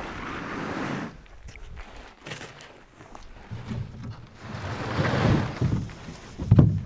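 Wind on the microphone for about the first second, then rustling steps and scraping as a small homemade plywood boat is moved over frosted grass toward the water, with a heavy low thump near the end.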